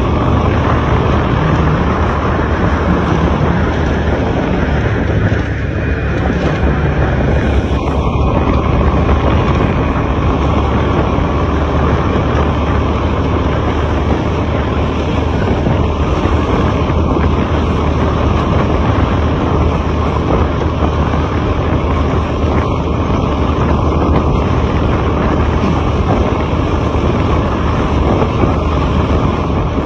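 Truck engine running with steady road and wind noise: a constant low drone under an even rush that holds the same level throughout.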